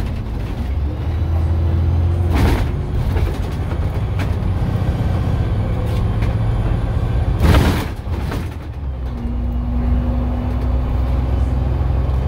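Dennis Trident double-decker bus running on the road, heard from inside: a steady low drone with a faint whining tone that comes and goes. Two brief bursts of noise stand out, about two and a half and seven and a half seconds in.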